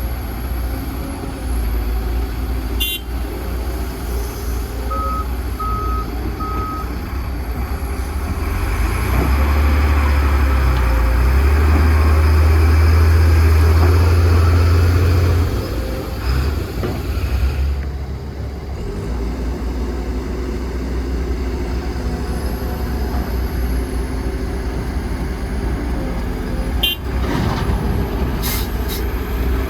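Heavy earthmoving machinery engine running steadily, working harder and louder for several seconds in the middle before dropping back. Three short beeps sound early on, and there are a few sharp clicks or knocks.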